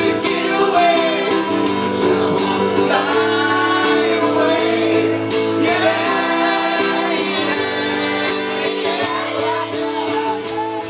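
Live acoustic folk music: strummed acoustic guitar chords and singing, with hand percussion keeping a steady beat.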